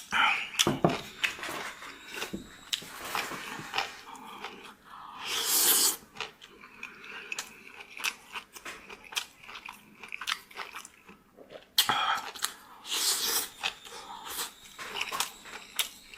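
Close-up mouth sounds of a person eating: chewing and crunching food, with many small wet clicks and snaps. There are louder noisy stretches about five seconds in and again around twelve seconds.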